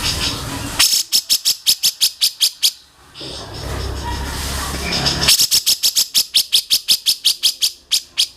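A songbird calling in two rapid runs of sharp, repeated high notes, about eight a second, each run lasting about two seconds.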